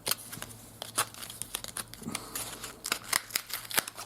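A magnet pack's wrapper crinkling and tearing as it is opened by hand: an irregular run of sharp crackles and rustles.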